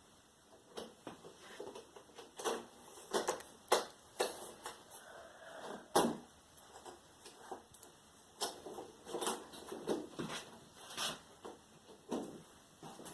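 Thin plastic diffuser sheets of an LED TV's backlight being handled and laid into place: irregular rustles and light clicks and taps, a dozen or so, two of them sharper.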